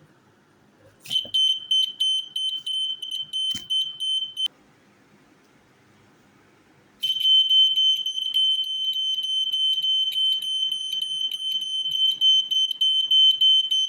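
A model earthquake alarm sounding a steady high-pitched tone. It goes off for about three and a half seconds, stops, then starts again a few seconds later and keeps going.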